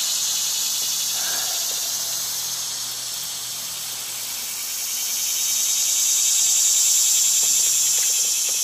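Cicadas singing in the summer trees, a steady high-pitched chorus that swells to its loudest about two-thirds of the way through.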